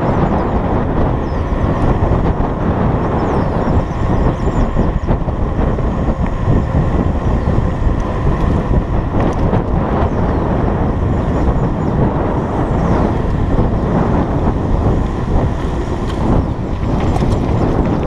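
Wind buffeting the microphone of a camera carried on a moving mountain bike, over steady tyre and road rumble from riding on pavement.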